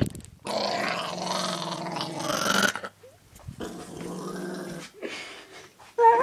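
Small white dog growling in two long bouts, the first loud and the second quieter, ending with a short sharp higher-pitched sound. It is the dog's angry growl at being interrupted while licking a pillow.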